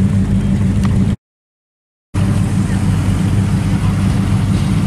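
Classic late-1960s Ford Mustang's engine and exhaust giving a steady low rumble as the car rolls slowly by. About a second in it cuts to a second of silence, then another classic car's exhaust carries on with the same steady low rumble.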